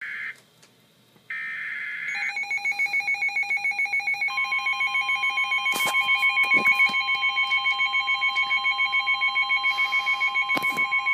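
Emergency Alert System flash flood warning: the end of the digital SAME header, heard as short buzzy data bursts, then a fast pulsing two-pitch alarm beep. About four seconds in, the steady 1050 Hz weather-radio warning alarm tone joins it.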